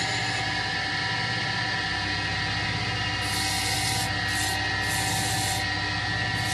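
Wood copy lathe running with a steady motor hum and whine. From about three seconds in, a high hissing rasp comes and goes as the spinning wooden balls are sanded by hand.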